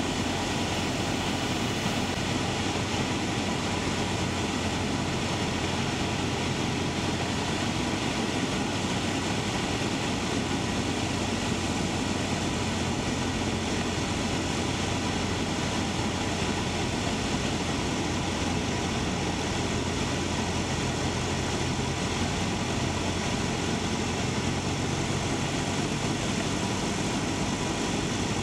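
Cessna 172's piston engine and propeller droning steadily, heard from inside the cabin as the plane descends on final approach.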